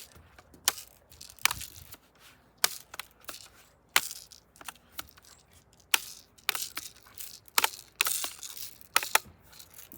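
A BB gun being handled: about a dozen sharp clicks and knocks at irregular intervals, with no clear shot.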